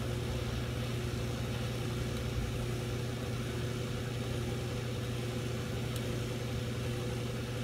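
Steady mechanical hum of running machinery, with a few fixed tones above a strong low drone and no knocks or breaks.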